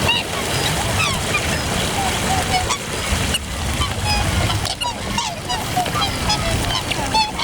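A flock of waterbirds calling over one another: many short honks and chirps overlapping, over a steady low rumble.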